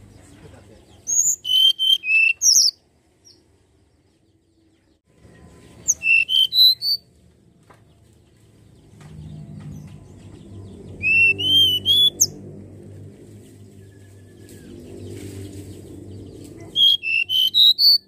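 Hill blue flycatcher (tledekan gunung) singing: four short phrases a few seconds apart, each a quick run of high, sweet whistled notes, some rising and some falling.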